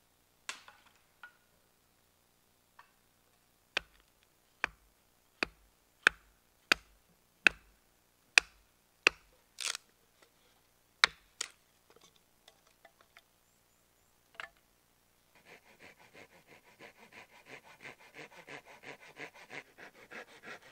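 Hatchet splitting kindling on a wooden chopping stump: a run of sharp strikes about one every 0.7 seconds, then a few scattered knocks. About three-quarters in, a folding hand saw starts cutting a branch with steady back-and-forth rasping strokes, about two a second.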